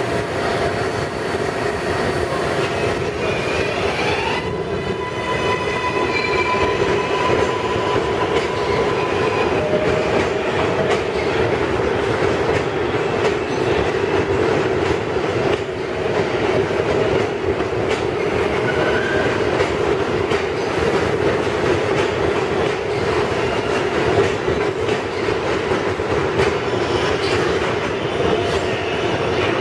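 R142A New York City subway train pulling out of the station and running past. A few seconds in, a whine rises in pitch and then holds steady as the train gathers speed. Under it, the cars rumble and the wheels run on the rails while the train passes and draws away.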